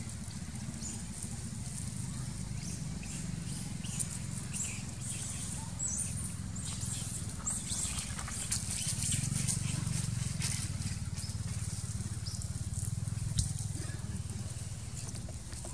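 Dry twigs and leaf litter crackling and rustling in many short, irregular clicks as macaques move through them, thickest in the middle, over a steady low rumble.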